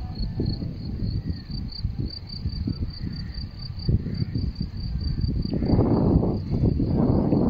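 Cricket chirping steadily in high, evenly spaced pulses, about five a second, over a low gusting rumble that grows louder in the last two seconds.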